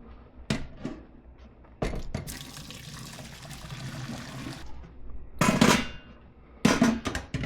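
Hot pasta water being poured off the lasagna noodles into a sink, rushing for about two seconds, with knocks and clanks of the pot before and after the pour.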